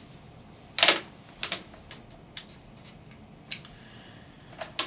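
A handful of short sharp clicks and taps, the loudest about a second in: a USB cable's plug handled against the desk and pushed into a laptop's USB port.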